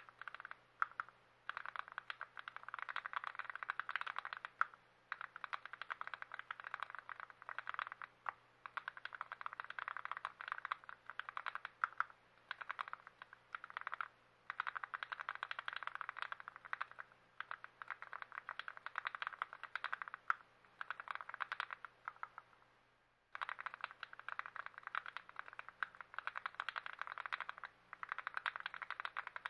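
Rapid, dense clicking and clattering of mechanical keyboard parts, in stretches of a few seconds broken by short pauses, with a brief break about three-quarters of the way through.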